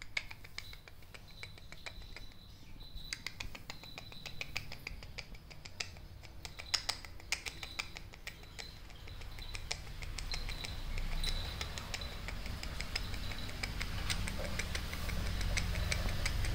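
Irregular light clicks and crackles of a plastic snack packet held in a puppy's mouth as it carries and mouths it, thickest in the first half. A faint steady high tone runs behind.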